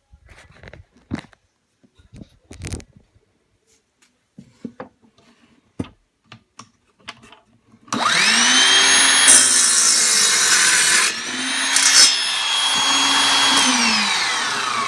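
A few light handling knocks, then a Ryobi 18-volt 7¼-inch cordless miter saw starts about eight seconds in, its motor whining up to speed. It cuts through a 2x4 and the blade winds down with a falling whine near the end.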